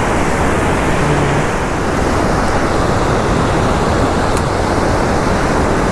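Loud, steady rush of water pouring over a waterfall on a rain-swollen, fast-flowing river.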